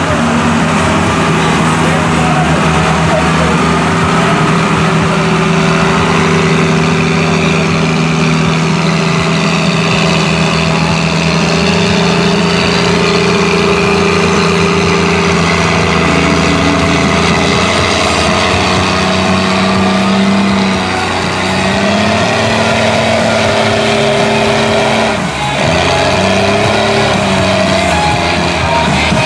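Lifted mud truck's engine running hard at high, steady revs as it works through deep mud, its pitch rising and falling with throttle changes in the last third.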